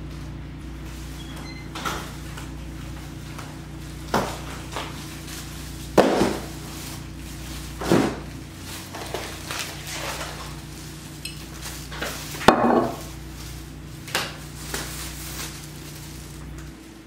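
A fork or spoon knocking and scraping against a food bowl in a string of separate clinks and scrapes, over a steady low hum that stops near the end.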